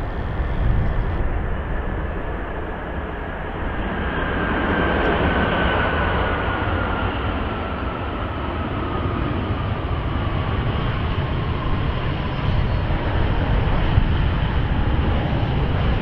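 Jet airliner passing close by: a steady rush of engine noise with a thin whine that slowly falls in pitch as it goes past.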